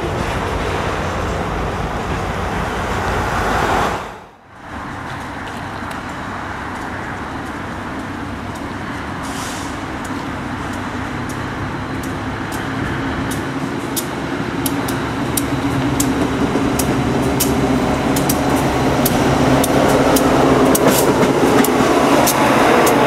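Freight cars rolling over a steel girder bridge. After a cut, Buffalo & Pittsburgh's EMD SD60M diesel locomotives approach and pass close by, their engines growing steadily louder, with sharp clicks from the wheels on the rails in the second half.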